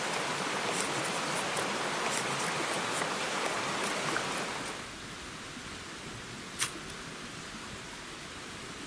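Woodland stream rushing steadily over rocks, with a few faint clicks. About five seconds in it drops to a quieter, thinner hiss, and a little later comes one sharp strike.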